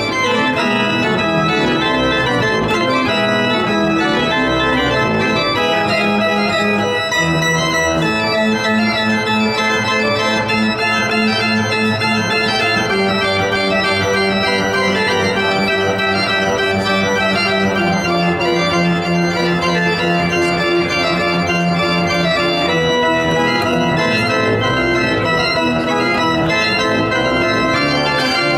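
Pipe organ playing a fast, dense passage: quick-moving notes over sustained chords and long-held bass notes, steady and loud throughout.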